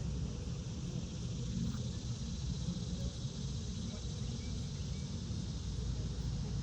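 Steady outdoor background noise: a low rumble with a faint, even high hiss over it.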